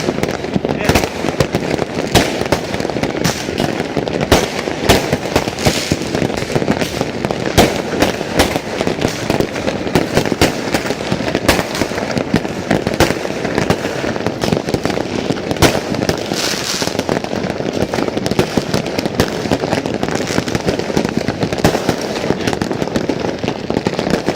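New Year's fireworks going off in a dense, continuous barrage of irregular sharp bangs and crackles, over a haze of crowd voices.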